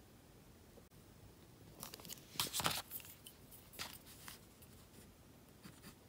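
A hand brushing and scraping over sketchbook paper, with the loudest rustle about two and a half seconds in. Near the end come a few light scratches of a pencil on the page.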